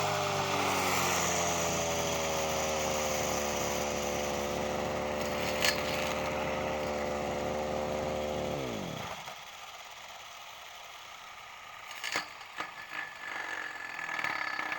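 Echo 240 brush cutter's small two-stroke engine running steadily, then shut off about nine seconds in, its pitch falling quickly as it runs down to a stop. A few light knocks follow near the end.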